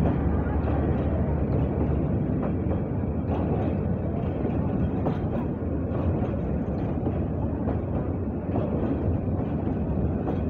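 Passenger coaches of an express train rolling past at close range: a steady rumble of wheels on rails, with a few faint sharp clicks from the wheels.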